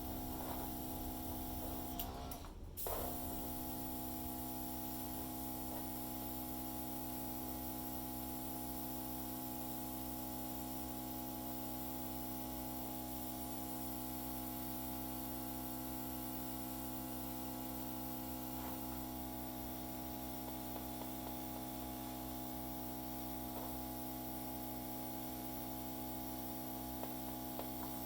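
Steady electrical hum with several steady tones, like a small motor or appliance running, dropping out briefly about two and a half seconds in.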